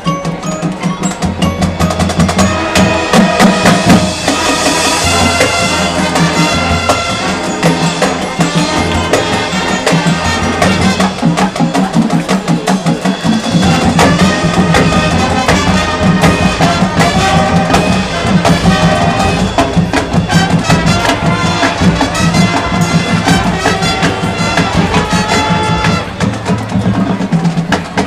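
A high school marching band playing loudly, brass and winds together over a drumline with frequent sharp drum and percussion strikes.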